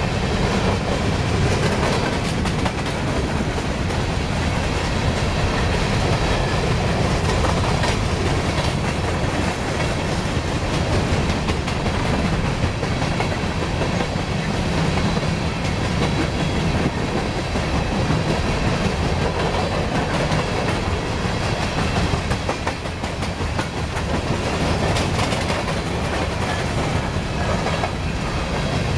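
Empty coal hopper cars of a freight train rolling past, a steady rumble of steel wheels on the rails with the clickety-clack of the wheels crossing rail joints.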